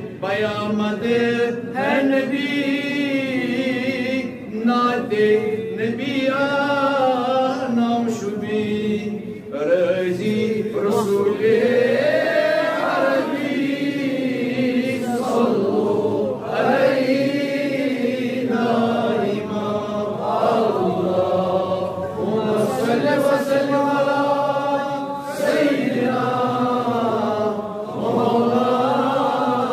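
A man chanting a Shab-e-Qadr munajaat, a devotional supplication poem, from a book, in long melodic phrases with short breaks between them.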